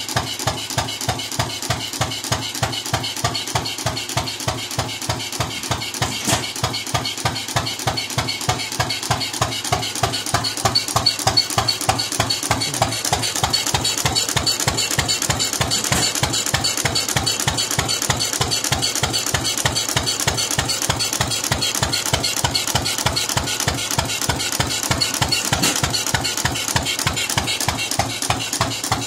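1918 Stover Type W throttle-governed kerosene engine running smoothly at a steady speed, its firing strokes coming as an even, regular beat of sharp exhaust knocks.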